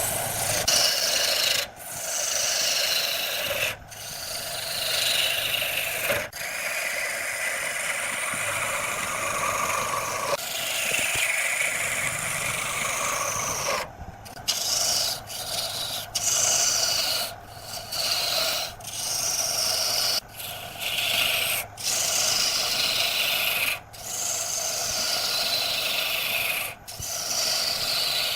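Turning tool cutting into wood spinning on a lathe: a continuous scraping, shaving noise with repeated falling hiss-like sweeps, broken by brief gaps that come every second or so in the second half.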